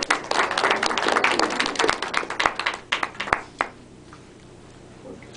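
A small audience applauding, the clapping thinning to a few last claps and stopping about three and a half seconds in.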